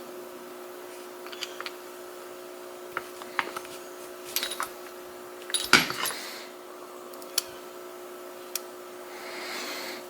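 Small metallic clicks and taps of tools working on a Mul-T-Lock cylinder whose core is jammed partway out. There is a louder clatter of several clicks about six seconds in and a soft rubbing noise near the end.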